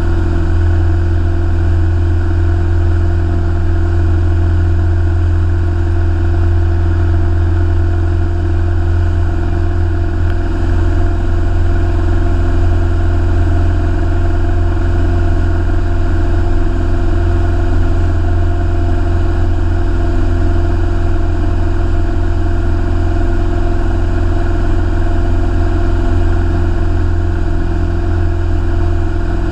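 Engine and propeller of a light single-engine piston aircraft, a steady, unchanging drone heard from inside the cockpit.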